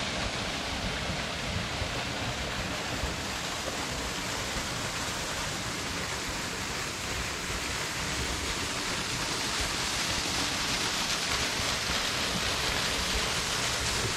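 Steady rushing and splashing of a small waterfall pouring into a rocky pool.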